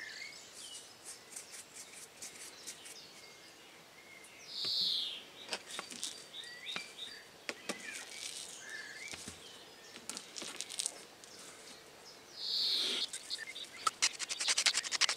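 Seasoning being sprinkled onto raw pork steaks on a mat: light ticks and taps, with two short rustling bursts at about five seconds and about thirteen seconds. Near the end a wooden pepper mill grinds in a quick run of clicks. Small birds chirp faintly in the background.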